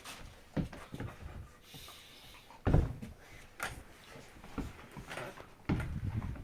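A sick dog breathing in a small room, with several short, sudden low sounds; the loudest comes nearly three seconds in, and a longer burst near the end.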